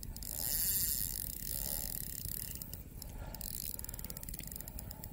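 Fishing reel's drag clicking in a rapid run as a hooked catfish pulls line off against it, loudest in the first second or so.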